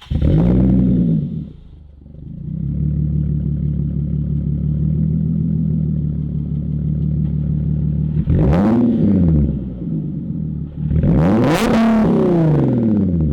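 Supercharged Nissan 370Z's V6 through a Tomei Expreme Ti titanium dual exhaust. It gives a quick rev blip, settles to idle for several seconds, then is revved twice more, about three seconds apart.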